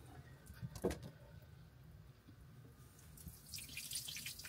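Water and antifreeze dripping and spattering out of a boat's heater-core hose, starting faintly about three seconds in and growing, after a couple of soft knocks about a second in.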